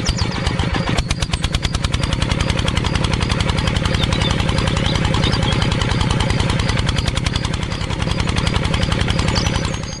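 Tractor engine running with a fast, even chug.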